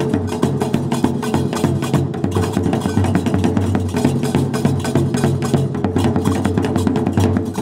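Moroccan Gnawa percussion: several pairs of iron hand castanets (qraqeb) clacking in a rapid, continuous clatter over the beat of large two-headed drums struck with sticks.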